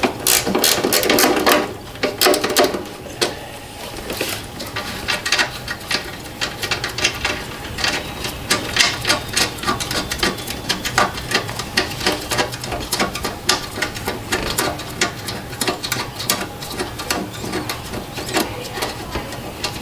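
Hand ratchet with a 12 mm socket clicking as a bolt is worked out, a long run of quick, uneven clicks, louder for the first couple of seconds.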